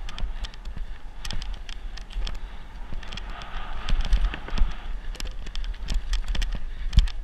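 Mountain bike ridden fast down a rough dirt trail: irregular rattling knocks and clicks from the bike, several a second, over tyre noise and wind buffeting the helmet-camera microphone. About four seconds in, a louder stretch of clatter as the bike crosses a wooden plank bridge.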